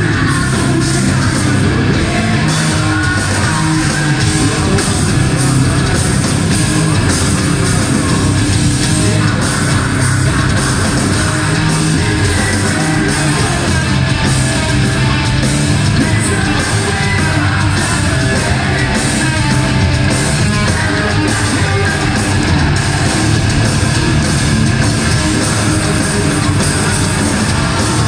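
Live metal band playing loud, with distorted guitars and sung and yelled vocals, heard in a concert hall.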